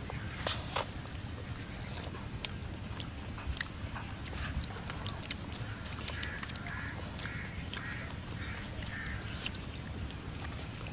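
Outdoor ambience of birds: high chirping trills throughout, and a bird calling about six times in quick succession a little past the middle, over a low steady rumble with scattered small clicks.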